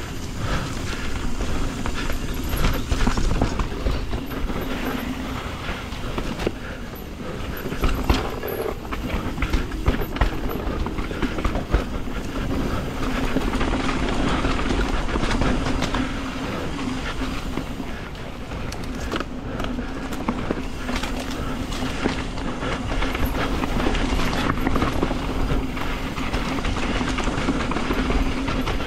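Yeti SB150 full-suspension mountain bike ridden fast down a dirt trail, heard from the rider's GoPro: tyres on dirt, chain and frame rattling, and scattered sharp knocks over roots and rocks, with wind buffeting the microphone. A humming buzz comes and goes throughout.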